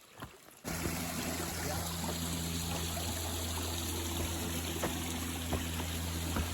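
Steady rush of flowing water that starts abruptly about a second in, with a low steady hum beneath it and a few faint knocks.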